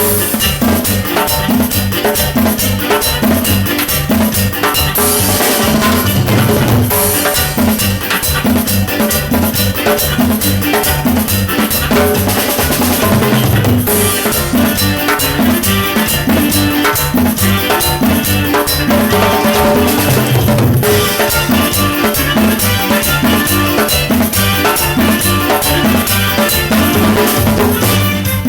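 Loud dance music with a drum kit and percussion keeping a steady beat.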